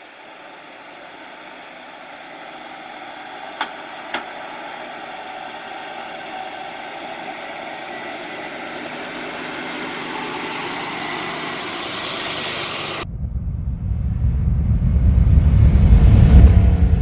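1970 Chevrolet Corvette's 454 cubic inch big-block V8 running through dual exhaust as the car pulls slowly forward, growing louder, with two sharp clicks about four seconds in. It cuts off suddenly about thirteen seconds in, replaced by a deep rumble that swells to a loud peak near the end.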